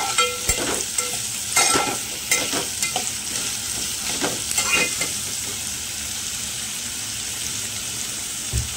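Chopped onions frying in oil with ginger-garlic paste in an aluminium pot, a steady sizzle; the onions are being sautéed until half cooked. A steel spatula scrapes and clinks against the pot several times in the first five seconds as they are turned, then the sizzle goes on alone.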